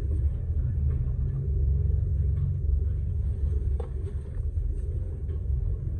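Low, steady rumble of an off-road vehicle driving slowly along a muddy dirt trail, with a single small knock a little before four seconds in.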